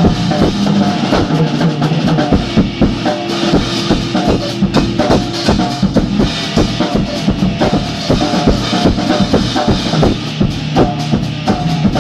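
Drum kit and guitar playing an improvised jam: busy, rapid drumming with bass drum, snare and cymbals over held guitar notes. Recorded loud and rough through a phone's microphone.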